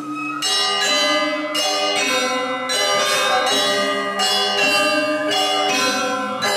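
Tuned metal percussion playing a melody of struck, ringing notes, about two strikes a second, the notes overlapping as they ring on.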